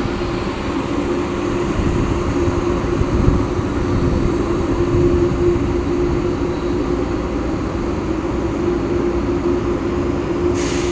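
Train running past: a steady, loud rush of noise with a steady hum underneath. A short hiss comes near the end.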